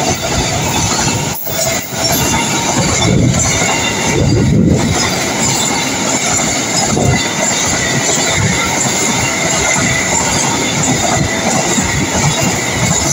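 Freight train of flat wagons carrying shipping containers rolling past close by at speed: loud, continuous wheel-on-rail noise, with a faint thin high squeal of the wheels running through it.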